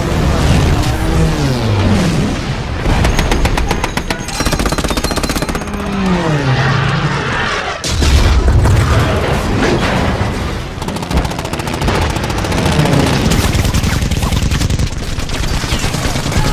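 Battle sound effects: bursts of rapid machine-gun fire, explosions with a heavy boom about halfway through, and warplane engines passing overhead with falling pitch, over a music score.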